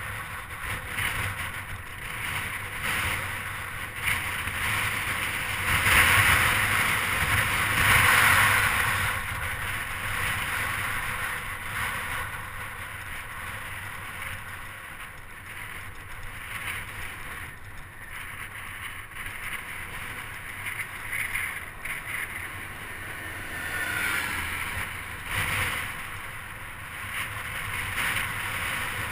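Wind buffeting the microphone of a camera on a moving bicycle. It is a steady rushing noise that swells loudest about six to nine seconds in.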